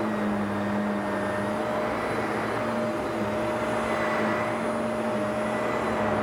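Vacuum cleaner running steadily, a constant motor whine over a rush of air.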